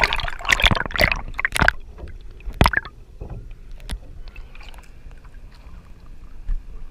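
Sea water splashing and sloshing against a camera held at the surface, loudest in the first two seconds, with another splash just before the third second. Then it goes quieter and muffled as the camera sits underwater, with scattered small clicks.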